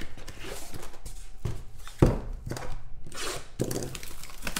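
Cardboard trading-card boxes handled by hand: a 2016 National Treasures football box slid out of its cardboard shipping case and set on the table, with scraping and several dull knocks, the loudest about two seconds in.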